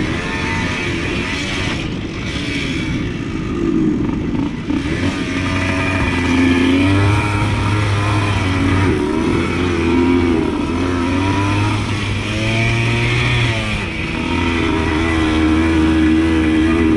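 Suzuki TS100 two-stroke single-cylinder engine under way on a dirt bike, its pitch rising and falling again and again as the throttle opens and closes.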